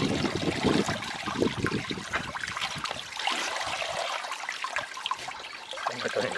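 Water running from a hose, splashing and trickling.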